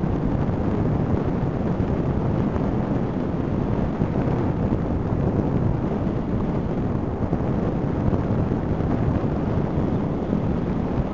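Steady low rumbling rush of wind buffeting the microphone of an airborne camera, with no distinct events or pitched tones.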